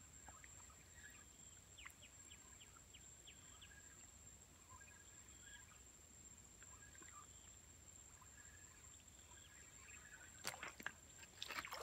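Near silence: faint outdoor ambience with scattered, faint bird chirps and a steady high-pitched whine, then a few sharp clicks near the end.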